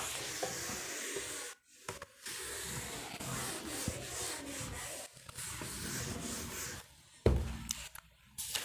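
Scratchy rubbing of writing by hand, in three long stretches with short breaks, then a thump about seven seconds in.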